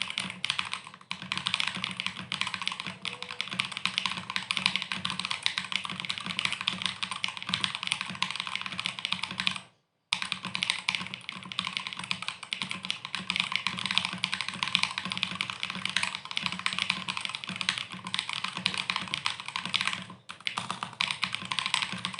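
Redragon K630W mechanical keyboard with KTT Kang White linear switches, stock stabilizers, tempest mod and PE and EVA foam, typed on rapidly and continuously. The keystrokes break off briefly about ten seconds in, then carry on.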